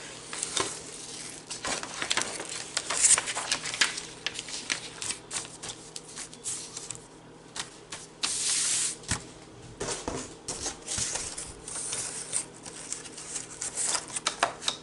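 Paper, cardboard and plastic-wrapped picture-frame parts being handled: irregular rustling and crinkling with many scattered clicks and taps as the collage sheet is put into the frame and the cardboard backing laid on.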